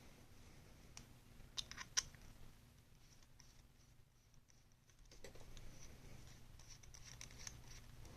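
A few faint, sharp metal clicks of pliers working on a folding knife's pivot screw, the sharpest about two seconds in, followed by soft handling and scraping noise.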